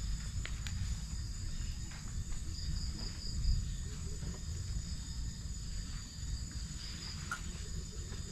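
Insects chirping in a steady chorus, with two high trilling tones, the lower of which swells and fades in pulses. Beneath it runs a low rumble, and there are a few faint clicks.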